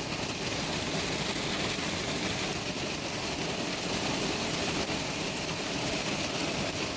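Heavy hail falling: a steady, dense noise of hailstones pelting the ground and plants.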